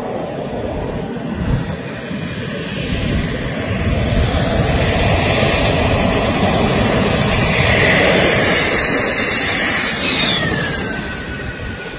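Dassault Rafale fighter's twin turbofan engines on landing approach and touchdown: a jet whine that grows louder as the aircraft comes in, then drops sharply in pitch as it passes, about ten seconds in, and fades away.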